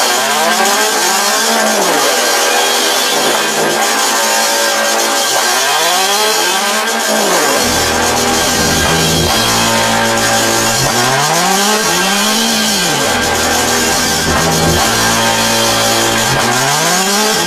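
Experimental noise music: a dense, harsh wall of noise with a pitched sweep that rises and falls, recurring about every five seconds. A low drone joins the texture about halfway through.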